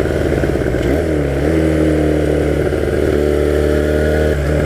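1982 Honda motorcycle engine running while riding. About a second in the engine note drops and climbs again, as at a gear change, then holds steady.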